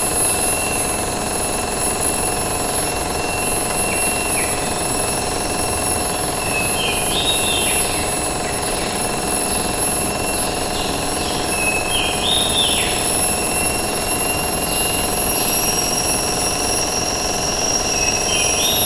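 Rainforest ambience: a dense, steady drone of insects at several high pitches, with a short animal call that steps up and then drops in pitch, heard about four times.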